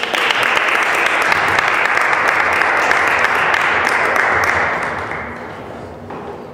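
Audience applauding: a burst of many hands clapping that starts at once, holds for about five seconds, then dies away.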